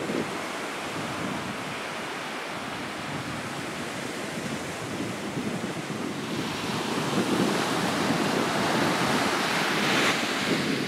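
Small waves breaking and washing up a sandy beach, with wind on the microphone. The surf grows louder about six seconds in.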